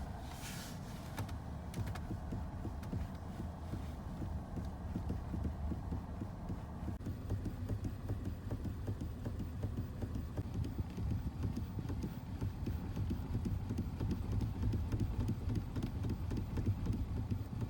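Chery Exeed TXL steering joints knocking in a quick, uneven run of low dull knocks as the steering wheel is turned slowly, over a steady low hum. The knocking at under 5,000 km is what the owner takes for something wrong in the steering linkage.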